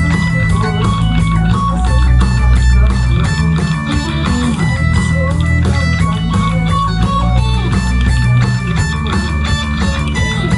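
Live rock band playing, with electric guitars and bass guitar over a steady drum beat.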